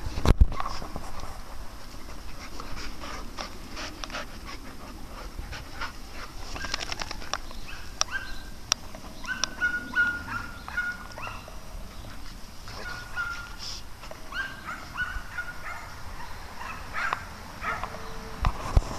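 Dogs play-wrestling on sand, with scattered scuffling and clicks and runs of short high-pitched dog whines, most of them in the middle and later part. There is a loud knock about half a second in.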